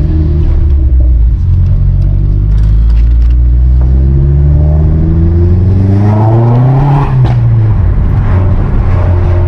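Vauxhall Astra H VXR's turbocharged four-cylinder engine accelerating. Its pitch climbs steadily for a few seconds, then drops sharply about seven seconds in, as at a gear change, and runs steady after.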